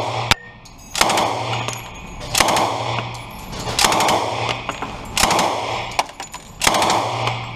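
Thompson submachine gun firing full-auto in .45 ACP: five short bursts about a second and a half apart, each ringing on in the reverberant indoor range booth.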